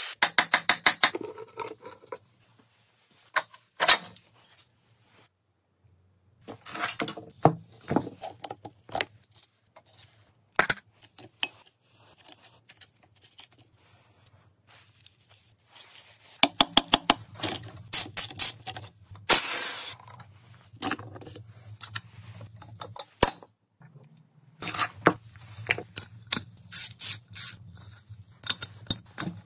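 Socket ratchet wrench clicking in several short, quick runs as bolts are undone on an old two-stroke motorcycle engine, with single clinks and knocks of metal tools and parts between.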